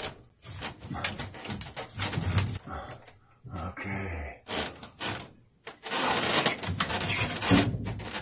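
Black plastic drain pipe and its fittings being pushed and twisted together by hand while the solvent glue is still wet: irregular rubbing, scraping and knocking of plastic pipe, busiest near the end.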